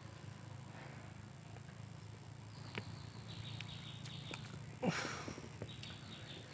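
Faint outdoor ambience: a steady low hum, with small high bird chirps starting a few seconds in and one brief louder sound about five seconds in.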